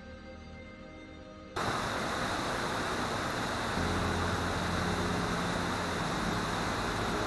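Background music that cuts off abruptly about one and a half seconds in, replaced by steady road noise of a vehicle driving: an even rushing hiss with a low engine hum that grows louder about four seconds in.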